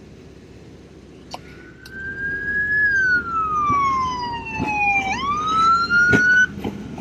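Police patrol boat siren wailing: one slow sweep that slides down in pitch and then climbs quickly back up before stopping, with a few sharp knocks along the way.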